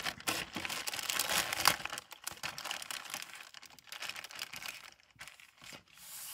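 Clear plastic bag crinkling as hands pull it open and unfold it: dense crackling for about the first two seconds, then sparser crinkles and clicks.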